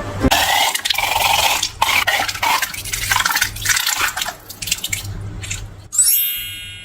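Slime squelching and dripping in a run of wet bursts, then a brief high squeak about six seconds in that fades away.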